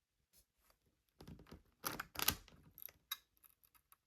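Scattered clicks and taps of a model locomotive being handled and set back onto its track by hand after derailing, with the strongest clicks about two seconds in.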